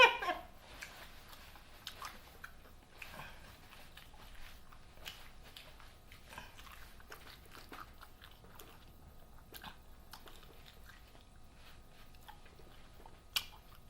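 A person chewing and biting food, with faint scattered crunches and mouth sounds, and one sharper click near the end.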